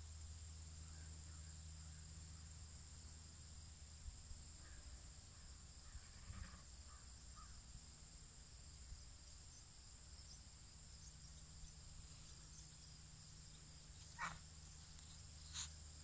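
Steady high-pitched drone of crickets, faint, with a few scattered distant bird calls and two short, louder calls near the end.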